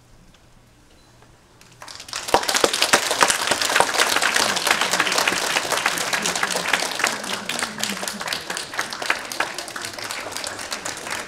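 Audience applause breaking out about two seconds in after a short quiet stretch, loud at first and slowly tapering off.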